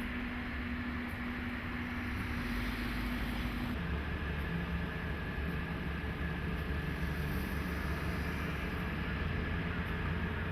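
DE10 diesel-hydraulic locomotive engine running steadily; about four seconds in its engine note drops and a thin high tone joins it.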